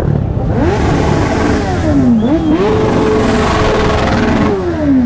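A motorcycle engine being revved hard: quick blips up and falls back, then held high and steady for about two seconds before dropping again near the end, over the rumble of many other engines.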